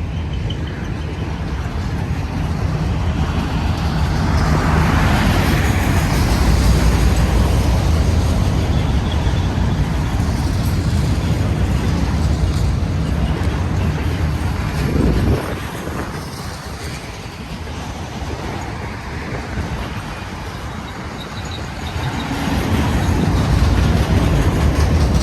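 Union Pacific autorack freight train passing: a steady low rumble of the train going by, growing louder after a few seconds, dropping suddenly about halfway through and building again near the end.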